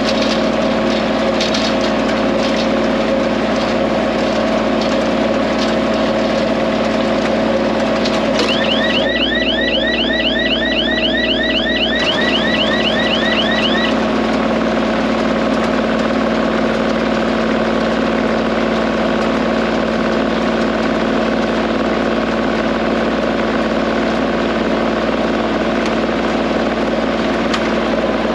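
Tractor engine running steadily at working speed. A quick run of high, rapidly repeating chirps sounds over it for a few seconds about a third of the way in.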